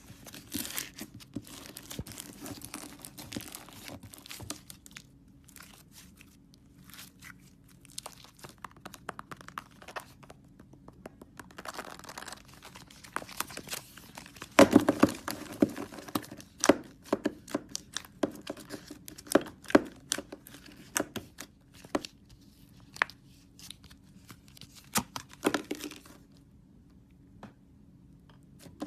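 Slime being squished and stretched by hand, with irregular crackling pops of air bubbles bursting. The pops come in clusters, loudest about halfway through, and die away near the end.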